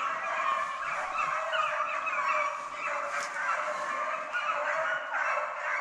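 A pack of deer hounds baying as they run a deer's trail, many voices overlapping in a continuous chorus.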